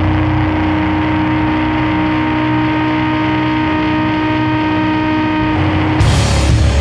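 Sludge doom metal: a loud, sustained, droning distorted guitar chord with steady ringing overtones. About six seconds in, the drone breaks off and the full band comes crashing in with drums and cymbals.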